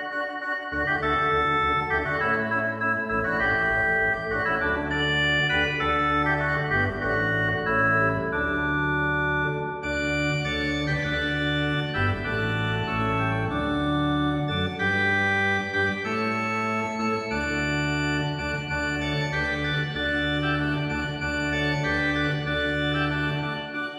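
Background music of held chords over a low bass line, changing every second or two.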